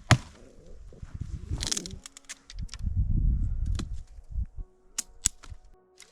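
A sharp axe strike into dry wood right at the start, then a second or so of low knocking and rubbing as the wood is handled, and two short, sharp cracks near the end.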